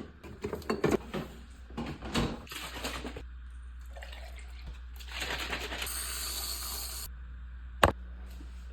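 A few knocks and clatter of handling, then liquid running for about four seconds, as from a tap or a pour. One sharp click comes near the end.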